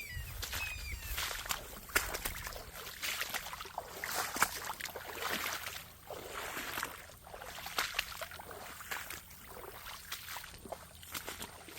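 A hiker's footsteps and brush rustling, a steady crackle of steps with short swishes of vegetation. A bird gives a couple of short falling chirps in the first second.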